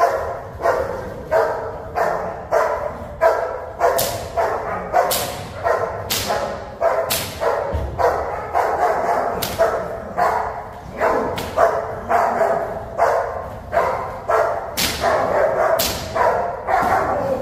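A black German Shepherd protection dog barking over and over at a decoy, about one to two barks a second, while it lunges against a leash.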